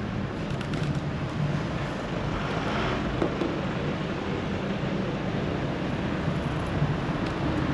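Steady low rumble of road traffic in a village street, with wind on the microphone.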